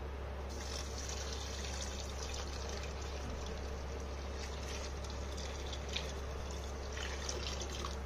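Boiled milk poured from a steel pot into a pan of roasted vermicelli: a steady splashing pour that starts about half a second in, with a small click about six seconds in.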